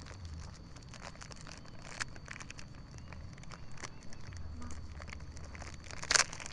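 Thin plastic bag of drone propellers crinkling and rustling as it is handled and opened, in faint scattered crackles with a louder crinkle near the end.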